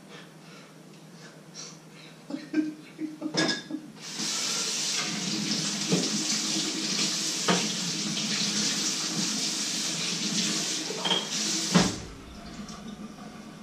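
Kitchen sink tap running steadily for about eight seconds, then shut off, with a knock against the sink as it stops. A few clinks of dishes come just before the water starts.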